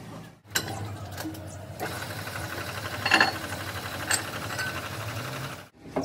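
Workshop sounds of metal parts being handled: a few sharp metallic clinks over a steady, rapid mechanical whirr.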